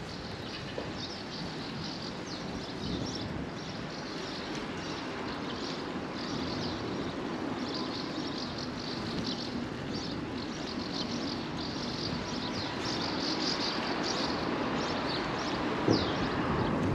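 Outdoor ambience on a walk: a steady low rumble of wind and distant traffic, with quick high chirps repeating throughout, and a single short knock near the end.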